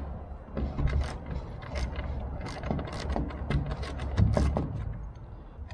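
Irregular small metallic clicks and ticks as a small socket wrench runs a nut onto the bolt holding the lower end of an aluminium tail brace tube to its bracket. The hardware is only being snugged up by hand, left loose until the whole tail is assembled.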